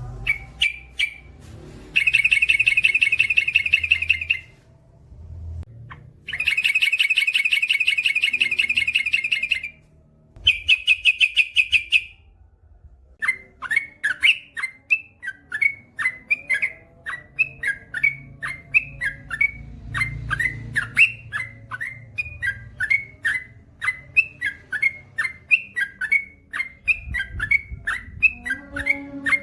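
Yellow-vented bulbul singing: three long, very rapid trills, then a long run of short bubbly chirps at about three a second.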